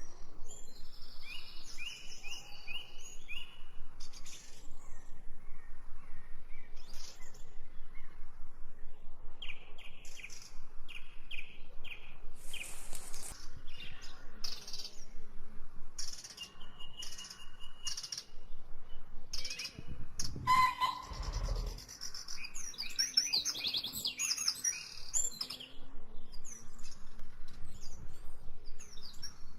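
Several songbirds chirping and calling, many short high calls overlapping, with a brief low rumble about two-thirds of the way through.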